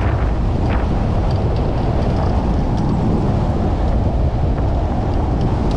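Steady wind buffeting the microphone on the bow of a boat under way across choppy water, with short splashes of water against the hull now and then.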